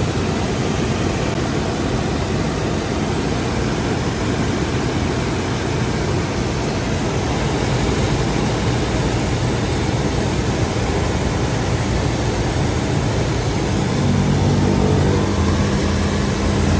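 Toyota Innova engine running at a raised idle of about 1,500 rpm with its radiator cooling fan spinning hard, a loud steady rushing. The engine note grows a little stronger about fourteen seconds in.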